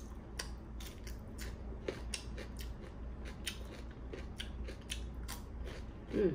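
Close, crisp chewing of a raw cucumber slice: a few sharp, irregular crunches each second. A short hummed vocal sound near the end.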